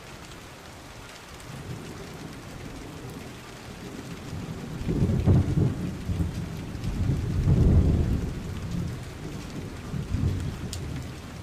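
Steady rain with thunder: low rumbles swell about five seconds in and again near eight seconds, with a weaker one near ten seconds.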